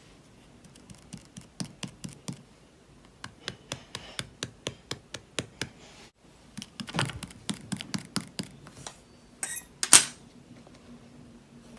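A run of sharp clicks or taps, about two a second, then a burst of rustling clicks and one loud clack about ten seconds in.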